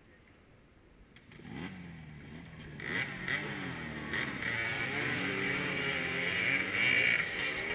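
Several vintage dirt bike engines revving hard at once as a row of riders launches off a race start line, their pitches wavering as they accelerate. They come in about a second and a half in and get louder about three seconds in.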